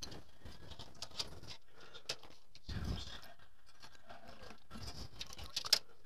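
Faint handling noises as a case fan and its cable are worked into a PC case: scattered light clicks and rustling, with one sharper click near the end.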